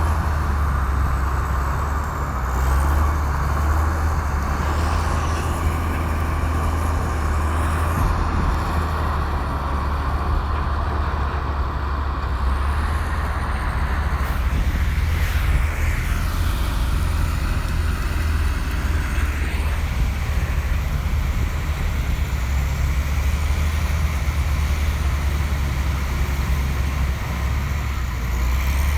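Komatsu bulldozer's diesel engine running steadily under load with a deep, constant hum, a brief rising sweep about halfway through.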